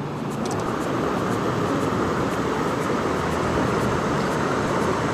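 Steady rushing of river water running over rocks and rapids, even and unbroken throughout.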